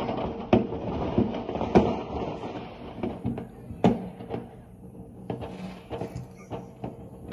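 Fireworks going off across the neighbourhood: irregular bangs and pops every second or so, the sharpest about two and four seconds in.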